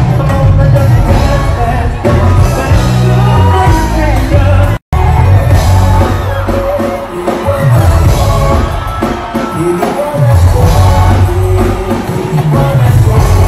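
Loud live band music with a male lead singer: bass guitar, drums and guitar under the vocal. The sound cuts out for a split second about five seconds in, then the music carries on.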